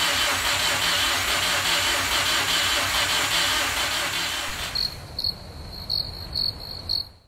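Subaru WRX EJ25 flat-four being cranked on the starter with a steady pulsing churn, not catching: the engine is getting no fuel because the fuel pump fuse is unplugged. After about four and a half seconds this cuts to a cricket-chirping sound effect, about five short chirps.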